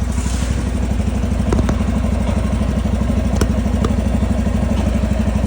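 An engine idling steadily, a low pulsing drone, with a few light sharp clicks over it.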